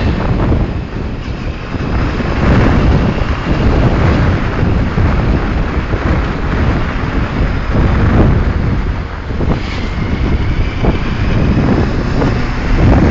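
Heavy wind buffeting on the microphone of a moving motorbike, rising and falling in gusts, with the bike's engine and road noise running underneath.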